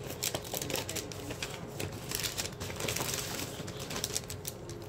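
Small packaging crinkling and rustling as it is handled, with many short irregular crackles.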